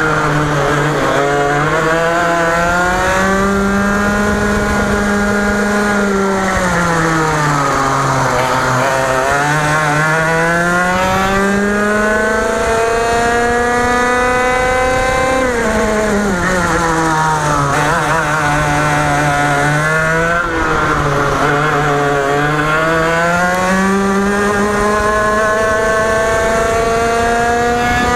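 A 125cc two-stroke TaG racing kart engine heard onboard at racing speed. Its pitch climbs steadily along the straights, then falls away as the kart slows for each corner, again and again.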